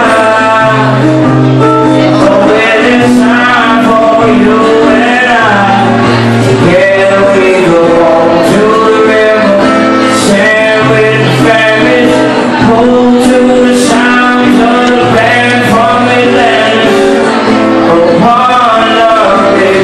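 Live acoustic guitar played with a man singing over it.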